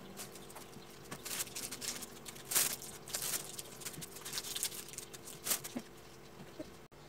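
Plastic bag crinkling and rustling in short irregular bursts as fresh cherries are pulled from their stems by hand, over a faint steady hum.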